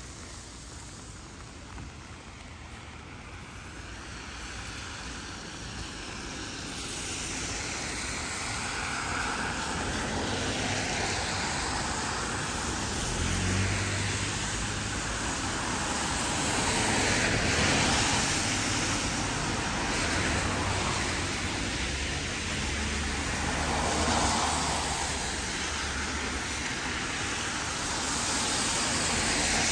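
Road traffic: vehicles passing, their tyre and engine noise building up and then swelling and fading several times as each goes by.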